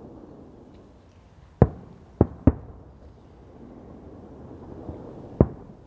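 Fireworks going off: four sharp bangs, three close together about a second and a half in and a single one near the end.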